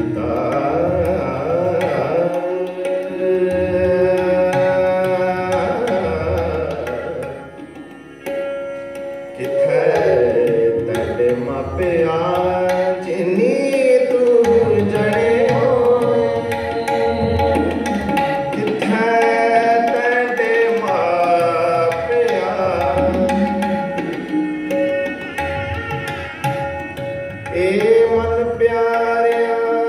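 Gurbani kirtan in raag: a sung melodic line with gliding ornaments, accompanied by jori hand drums and melodic instruments, including bansuri flute and bowed tarshenai. The music eases briefly about eight seconds in, then continues.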